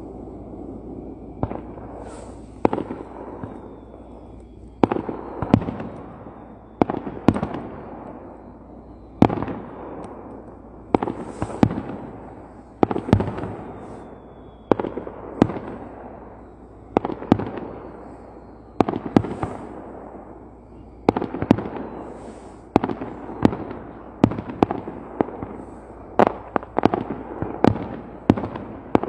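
Aerial fireworks shells bursting one after another, each bang trailing off in a long echoing rumble. The bursts come faster and closer together near the end.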